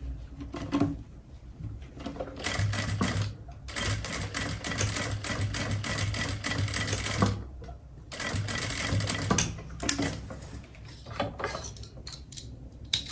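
Sewing machine stitching in several runs with short stops between them, the longest run about three and a half seconds, while a zipper is sewn into trousers.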